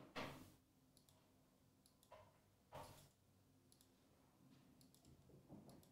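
Near silence, broken by a few faint, brief clicks and rustles.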